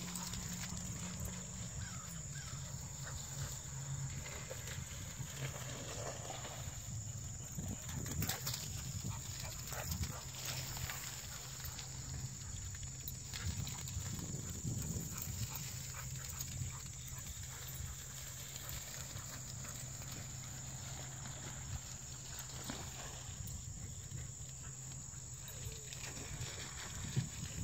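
Two dogs playing and running through tall grass: rustling and scattered short thumps of their movement, with the dogs' breathing and grunting.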